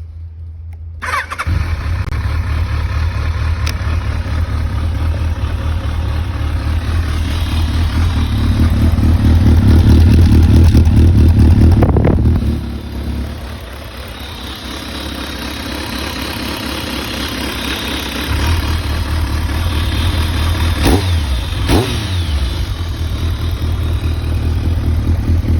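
Kawasaki ZRX1200R inline-four engine running with its muffler outlet blocked by a rag, so that mechanical noise comes through over the exhaust; the owner finds no abnormal noise. It comes in about a second in, grows louder to a peak, drops sharply about halfway through, then slowly builds again.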